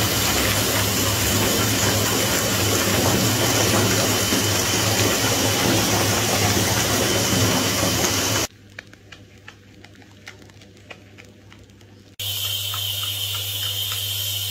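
Steady rushing of bath water with a low hum; it cuts off abruptly about eight and a half seconds in, leaving quiet small splashes and drips, then comes back just as suddenly about four seconds later with a faint high whine over it.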